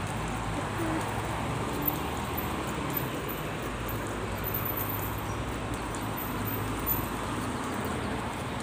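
Road traffic: cars passing on the street beside a steady low hum of engines.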